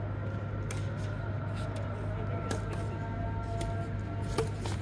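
Badminton rackets striking a shuttlecock during a rally: several short, sharp hits spaced irregularly, the loudest near the end, over a steady low hum.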